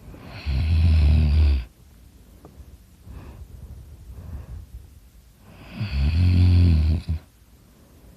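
A person snoring loudly in sleep: two low, rattling snores about a second long each, some five seconds apart, with softer breathing between them.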